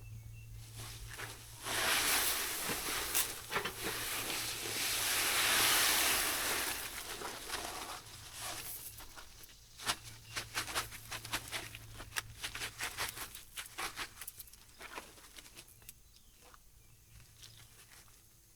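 Pea gravel being poured into a half-barrel forge: a rushing rattle of stones for about six seconds, then many scattered clicks as the stones are handled and settle.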